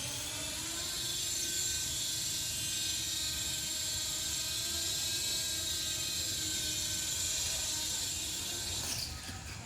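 Small electric RC helicopter's brushless motor and rotor whining, climbing in pitch over the first second, then holding a steady high whine. It cuts off abruptly about nine seconds in.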